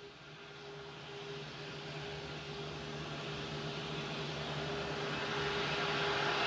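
Distant jet engines of an Airbus A340-600, its four Rolls-Royce Trent 500 turbofans running with a steady hum under a hiss that grows steadily louder.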